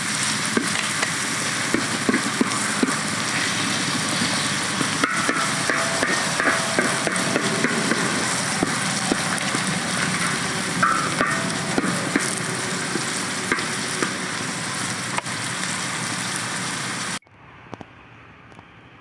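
Food sizzling loudly as it fries in a pan over a campfire, with the scrape and clack of a utensil stirring it. The sizzling cuts off suddenly near the end, leaving a much quieter steady background hiss.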